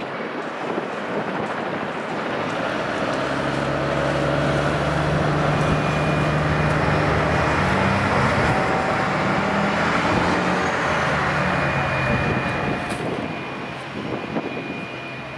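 Airbus A320-216's CFM56 turbofan engines running at low power as the airliner rolls out slowly and taxis off the runway: a steady jet rush with a few held whining tones, growing louder through the middle and easing off near the end.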